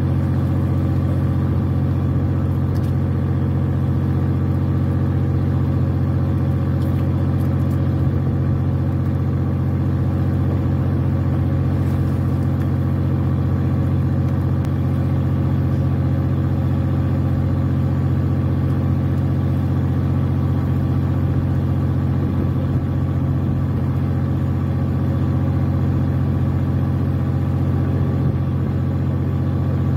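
A fishing boat's engine running steadily at idle, a low, even drone that holds the same pitch and level throughout.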